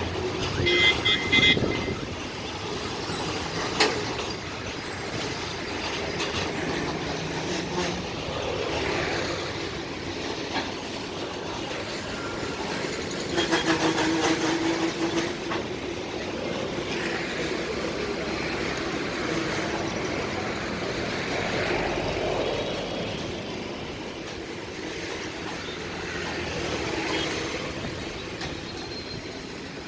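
Long Indian Railways freight train's wagons rolling steadily past, with wheel rumble and rail clatter and occasional brief high wheel squeals. There is a louder stretch about halfway through.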